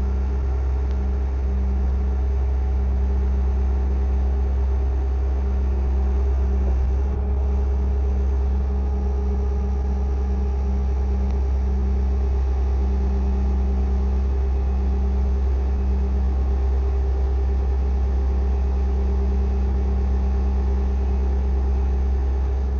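Bobcat S650 skid steer's diesel engine running steadily as a low, even drone while the machine carries and positions a load.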